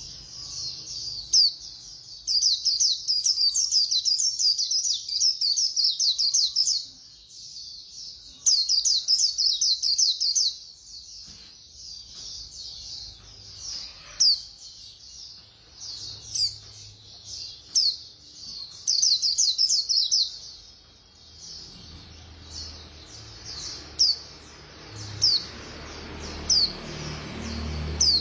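White-eye (khuyên) singing its fast, chattering 'líu' song: long runs of rapid high chirps lasting a few seconds each, with scattered single chirps between them.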